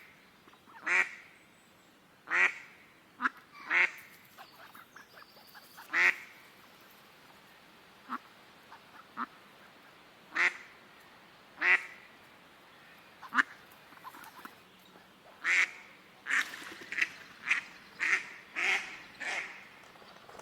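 Ducks quacking: single quacks spaced a second or two apart, then a quicker run of quacks near the end.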